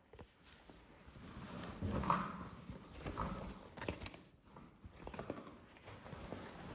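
Hands unpacking and handling a product: packaging rustling, with scattered light taps and clicks.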